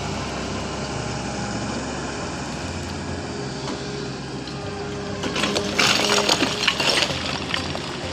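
Sany SY350 excavator's diesel engine running steadily, with a burst of clattering and scraping about five seconds in that lasts about two seconds and is the loudest sound.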